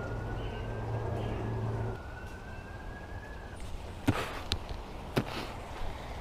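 Siren wailing, its pitch sliding slowly up and then holding before it fades out a little past halfway, over a low steady hum that stops about two seconds in. A few sharp clicks and knocks of handling come near the end.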